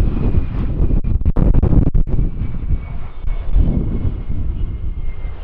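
Embraer ERJ regional jet's two rear-mounted Rolls-Royce AE 3007 turbofans as it touches down and rolls out on the runway: a loud, uneven rumble with a thin steady whine above it.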